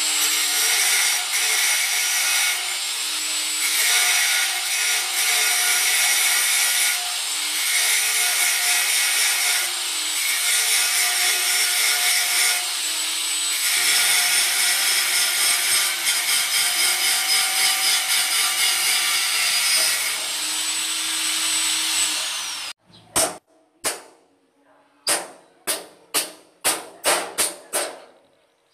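Angle grinder grinding on a metal frame, running continuously with a high whine that dips briefly now and then as the disc bites. It stops suddenly about 23 seconds in, and a hammer then strikes the metal about a dozen times in irregular sharp blows.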